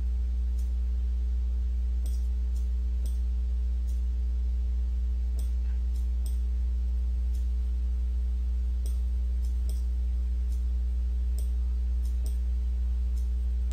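Steady low electrical hum, with faint computer-mouse clicks at irregular intervals, roughly one a second, as vertices are selected and dragged.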